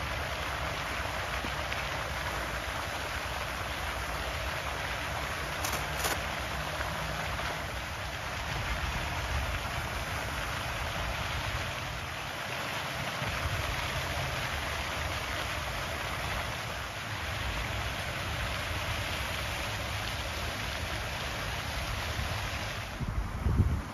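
Steady hiss of a pond fountain's spray falling onto the water, with low wind rumble on the microphone. Two short clicks about six seconds in.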